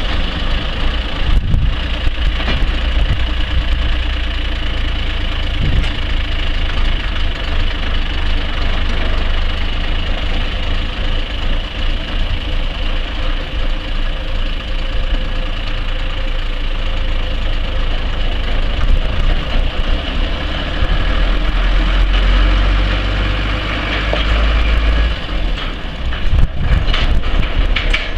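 Renault 335 cubic-inch turbo diesel engine of a 1980 Mack MS200 flatbed truck running steadily at idle, then louder as the truck is driven off in the last several seconds.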